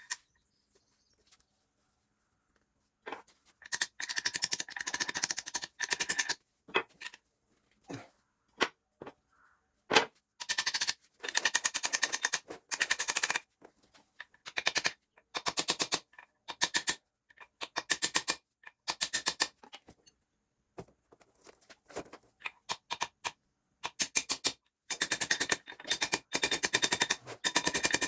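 Rapid rattling clicks from a mechanic's tool working on the tractor's rear axle, in repeated bursts of one to three seconds with short pauses between.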